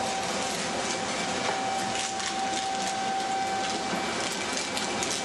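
POSS PDE 250 meat separator running on chicken: a steady mechanical whirr with a held mid-pitched tone, which fades out about four seconds in, and faint scattered ticks.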